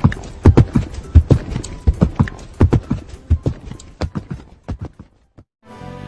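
Horse's hooves clip-clopping, about four beats a second, growing fainter and dying out near the end.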